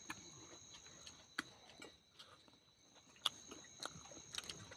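Quiet eating sounds: a few scattered sharp clicks and smacks of chewing, over a faint steady high-pitched whine.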